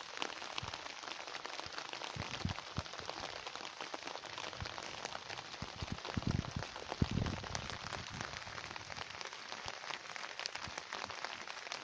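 Steady summer rain falling and pattering on surfaces, with a dense spray of fine drop hits and a few heavier low thuds about two and a half, six and seven seconds in.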